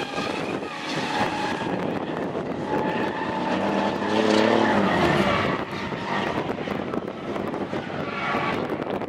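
Two race cars' engines running hard around a circuit, over steady tyre and road noise. The engine pitch climbs to a peak about halfway through, then falls away as the revs drop.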